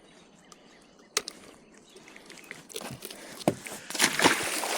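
A few handling knocks, then water splashing from about three seconds in as the blue catfish is let back into the lake.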